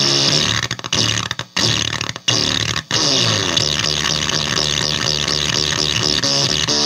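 Electric guitar in drop D played through a Basic Audio Pendulum pedal on a filtery, quacky setting, heard through the amp. The riff cuts off sharply several times in the first three seconds, then runs on with a quick, repeating filter sweep.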